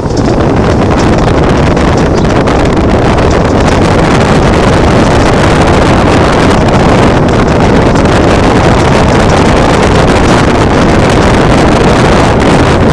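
Loud, steady road and wind noise from a 2008 Mazda 3 s on the move, with wind buffeting the microphone. The car has a persistent noise from the rear that new trailing arms, sway bar links, struts, springs, shock mounts and tyres have not cured.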